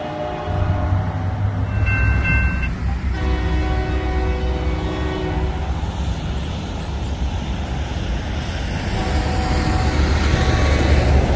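Train air horns sounding chords of several notes at once, over the low rumble of a train. A short, higher chord comes about two seconds in, a longer blast from about three to five and a half seconds, and another near the end.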